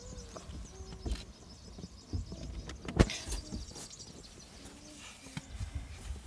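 Handling noise from a handheld camera moving inside a car: an uneven low rumble and scattered knocks, with one sharp click about three seconds in. Faint high chirps sound in the background.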